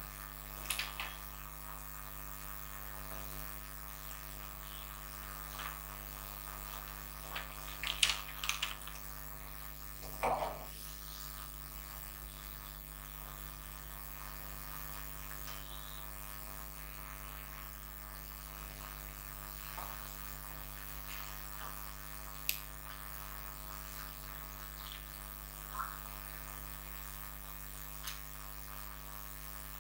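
Steady electrical mains hum, with a few brief faint clicks and knocks scattered through it, the most prominent around eight and ten seconds in.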